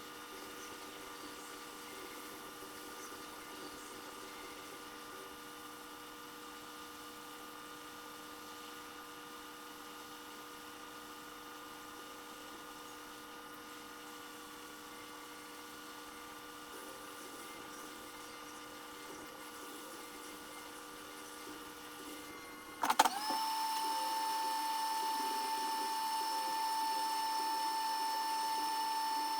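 A steady faint electrical hum of bench equipment; about 23 seconds in, a click and then a louder, steady high whine as a small motor or blower is switched on.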